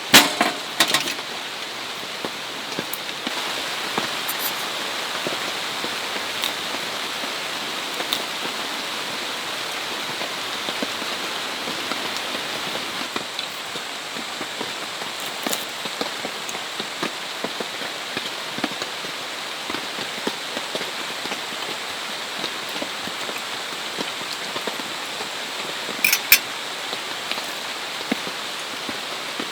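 Steady rain falling, with scattered drops ticking on a surface. A few sharper knocks come right at the start and again near the end.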